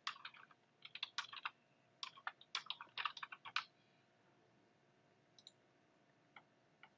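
Faint computer keyboard typing: quick runs of keystrokes for about three and a half seconds, then a few faint single clicks near the end.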